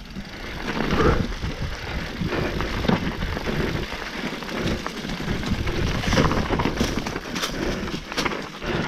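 Mountain bike rolling downhill over a rocky dirt trail covered in dry leaves: tyres crunching over stones and leaves and the bike rattling, with many quick sharp knocks.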